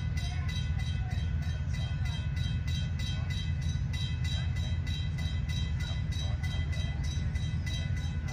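Endeavour-class diesel railcar set approaching, its diesel engine running with a steady low rumble.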